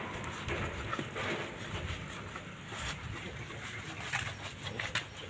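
Hands scrubbing shampoo lather through a wet Rottweiler's coat: a quiet, steady wet rubbing, with a couple of faint clicks near the end.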